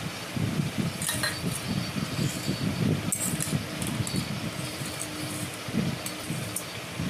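Steel serving spoon clinking and scraping against steel bowls and plates while fried okra and potato are served, a few sharp clinks over a steady low rumble.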